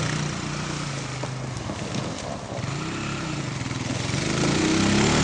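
ATV engine pulling a rider on a boogie board across grass. It runs lower in the middle, then revs up and gets louder near the end.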